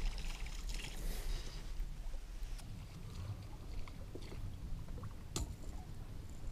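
Steady low rumble of wind on the microphone, with water lapping against a fishing boat's hull. A single sharp click about five seconds in.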